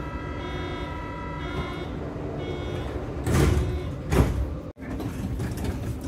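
Berlin U-Bahn class H97 train's door-closing warning signal: a multi-tone electronic chord sounding in repeated short pulses for the first three seconds. The sliding doors then run shut, ending in a loud thud just past four seconds in.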